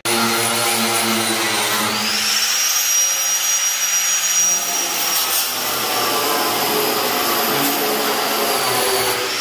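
Grinder running against the sheet-steel underside of a tractor canopy, grinding off old paint and rust: a steady, loud grinding noise with a high whine that shifts slightly in pitch as the tool is pressed on and eased off.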